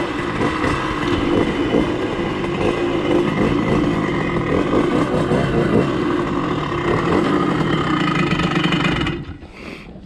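Motorbike engine running steadily under way, then the engine sound stops abruptly about nine seconds in.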